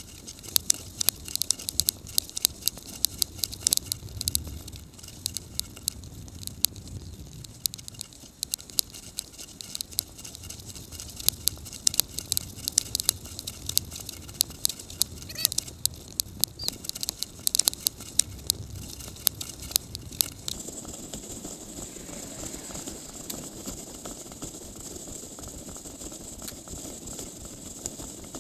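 Bicycle rattling and clicking as it is ridden, over a low rumble that comes and goes. About twenty seconds in the rattling stops and a steady hiss remains.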